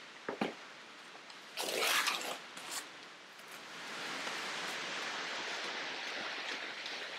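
Cardboard box handling: a couple of knocks, then a louder scraping rustle as the foam-wrapped car grille is slid out of the box. From about four seconds in, a steady rustle of the foam packing sheet being pulled off the plastic grille.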